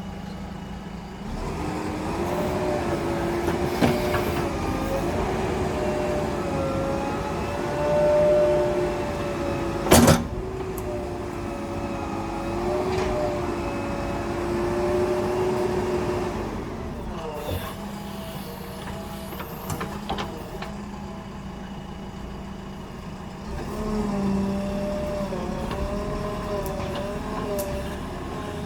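JCB 3DX Super backhoe loader's diesel engine working under load, its pitch rising and falling as it revs, with one sharp knock about ten seconds in. Past the middle it drops back to a lower, quieter run for several seconds, then revs up again.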